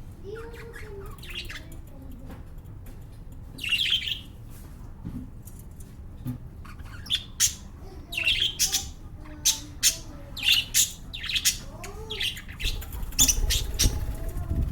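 Pet lovebirds calling with short, shrill squawks and chirps. There is one loud call about four seconds in, and the calls come thick and fast from about seven seconds on.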